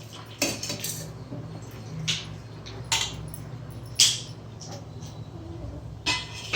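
Kitchen utensils clinking and tapping against a mixer-grinder jar as the rasam ingredients are put into it. There are about five separate clinks, and the loudest comes about four seconds in.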